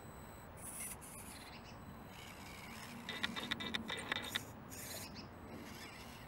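Small RC rock crawler with a stock 130-size brushed motor climbing rocks: its motor and gearbox whir in short throttle bursts, and a quick run of clicks and scrapes from the tyres and aluminium chassis on stone comes midway.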